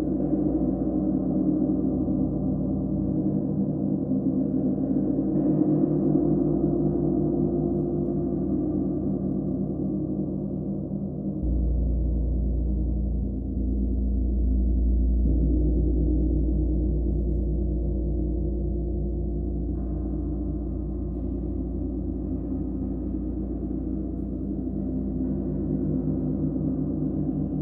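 A gong sounding in a long, steady wash of overlapping low tones that pulse and beat against one another. About eleven seconds in, a deeper swell comes up beneath it.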